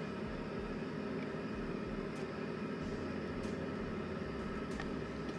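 Steady low background hum with an even hiss, and a few faint clicks.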